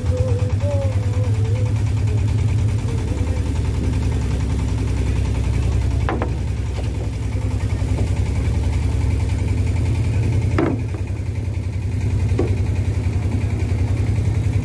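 A boat's engine running steadily with a fast, even pulse, with a couple of brief knocks about six and ten seconds in.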